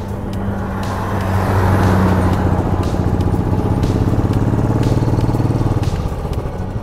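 Royal Enfield Classic 500's single-cylinder engine thumping steadily at cruising speed while a truck overtakes close alongside. The truck's engine and tyres swell to the loudest point about two seconds in, then ease as it pulls ahead.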